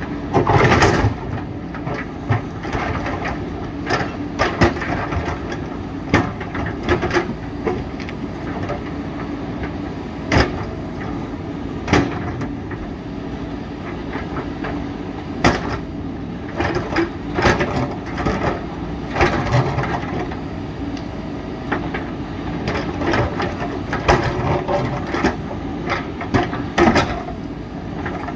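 JCB 3DX backhoe loader's diesel engine running steadily under load, with irregular sharp knocks and clatter as its bucket strikes and breaks rock.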